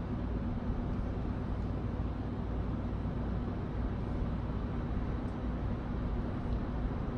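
Steady urban background noise: a low rumble with a constant hum running underneath.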